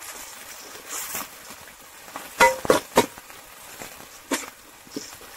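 A perforated metal spoon stirring sliced onions in hot oil in a metal pot, scraping the pan over a low sizzle. The spoon clinks sharply against the pot three times in quick succession about halfway through and once more about a second later.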